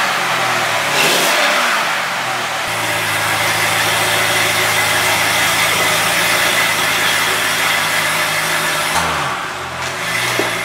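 A 2007 Corvette Z06's 7.0-litre LS7 V8, still cold on its factory exhaust, is blipped once about a second in and then idles steadily. Near the end the engine note dips and changes as the car pulls away.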